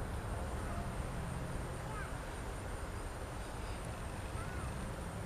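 Steady low rumble of a twin-engine jet airliner rolling down the runway at a distance, with a couple of faint bird chirps.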